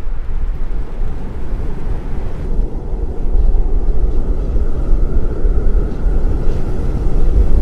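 Wind gusting against the microphone: a loud, uneven low rumble that gets a little louder and fuller about a third of the way in, then cuts off suddenly at the end.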